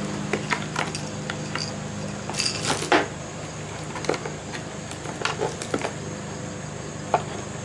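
Coiled cables with metal plug connectors clicking and rattling as they are handled and lifted out of a box's foam insert, with scattered sharp clicks and a louder knock and rustle a little under three seconds in.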